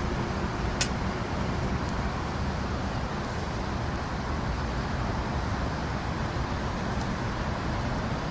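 Steady low rumble of road traffic mixed with wind on the microphone, with one short, sharp click about a second in.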